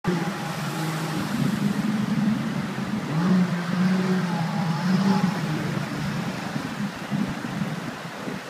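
Small jet boat's engine running at varying revs, its note swelling and falling as the boat pushes through a rocky rapid, over rushing water; the engine eases off near the end.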